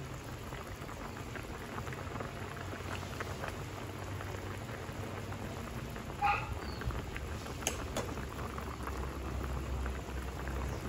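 Estofado stew bubbling at a steady boil in a stainless steel pot, a continuous crackle of small bubbles in the unstirred vinegar-and-soy broth. A short chirp about six seconds in and a single click a little later.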